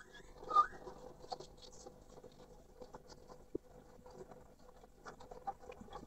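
Male Chinese hwamei (poksay mandarin) giving one short loud call about half a second in. It is followed by soft scratchy rustling and small clicks, with one sharp click about three and a half seconds in.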